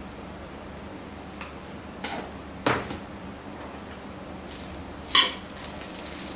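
A few separate clinks and knocks of a metal spoon on a stainless steel pan of rice as stirring begins; the sharpest comes about five seconds in.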